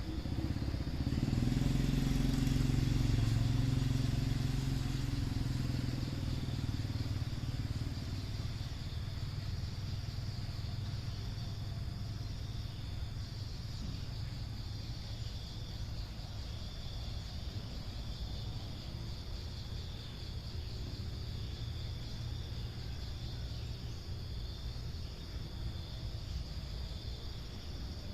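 A motor vehicle engine passing close by, swelling about a second in and fading away over the next several seconds, over a steady high chirring of insects.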